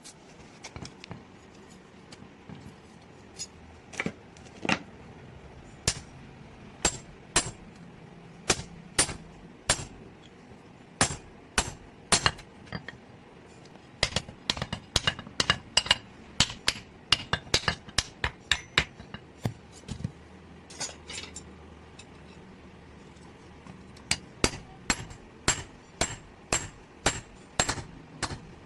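Blacksmith's hammer striking metal on an anvil, each blow a sharp, ringing clink. The blows are spaced at first, then come in quicker runs of about two or three a second, with a pause of a few seconds before the last run.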